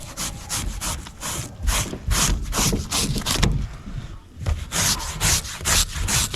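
Steel-bristled brush scrubbed rapidly back and forth over a salmon's skin, scaling the fish and scraping off the slime. The strokes come about four or five a second, with a short pause a little past the middle.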